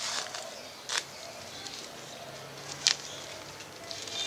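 Two short, sharp scrapes about two seconds apart from hand work in the garden soil of a planter bag, with a bird calling faintly in the background.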